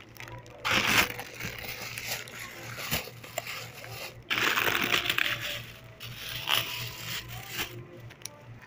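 Rustling and scraping handling noises in bursts, loudest about a second in and again from about four and a half seconds in, over a steady low hum.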